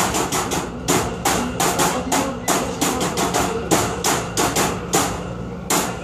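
Improvised percussion: a rapid, uneven run of hard knocks, about three to four a second, with pitched tones underneath.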